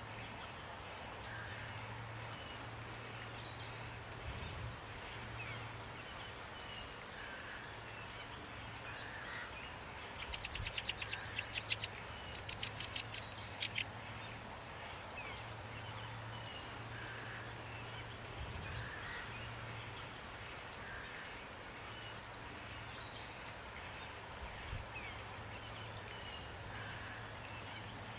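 Songbirds chirp again and again in short, high, downward-sliding notes over a steady rain hiss. About ten seconds in, a bird gives a rapid trill lasting about four seconds, the loudest part. A low hum comes and goes underneath.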